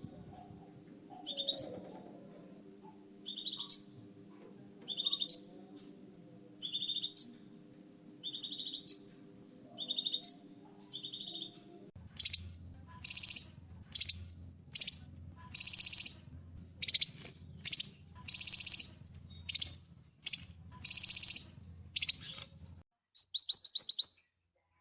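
Scarlet minivet singing: loud, high whistled notes repeated about every second and a half, then coming faster, roughly two a second, from about halfway through. A quick run of short falling notes near the end.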